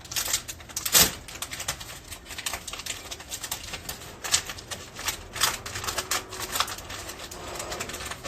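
Irregular light clicks and taps, several a second, with one louder knock about a second in.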